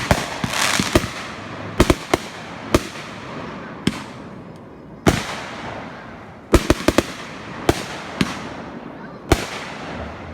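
Fireworks going off: a string of sharp bangs at irregular intervals, some in quick clusters, each trailing off in an echo. A crackling hiss follows just after the start.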